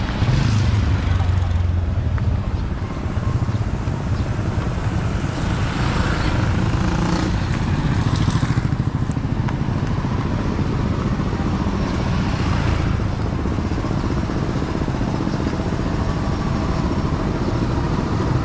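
Busy street ambience: motorbike engines passing close by over a steady murmur of people talking. The loudest engine is near the start, with more passing a few seconds later and again around the middle.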